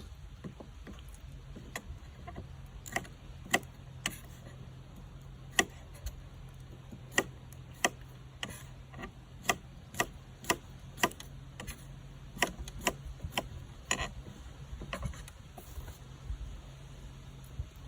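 Sharp clicks and taps at irregular intervals, about twenty in all, closest together between about seven and fifteen seconds in, over a steady low hum.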